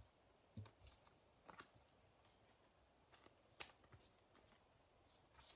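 Near silence, with a few faint, brief taps and rustles of trading cards being handled and set down on a table.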